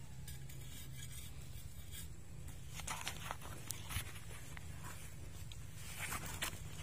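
Short scrapes and jabs of a hand-held tamâ planting blade in dry, clumpy soil as sugarcane setts are pushed into the ground. They start about three seconds in and come in small clusters.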